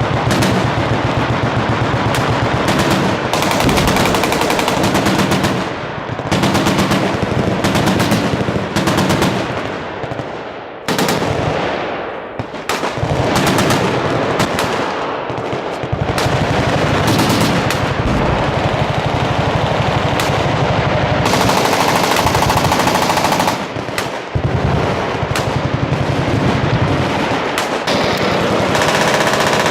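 Several machine guns firing at once from a shooting line: nearly continuous overlapping automatic fire, with a few brief lulls.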